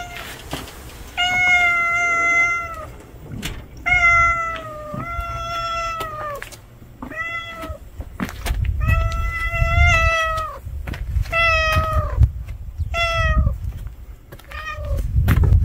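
A street cat meowing loudly and over and over, about ten drawn-out meows in a row, some held for more than a second: a cat begging for food.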